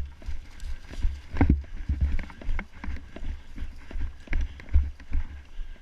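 Running footsteps, a steady series of low thuds at about two to three steps a second.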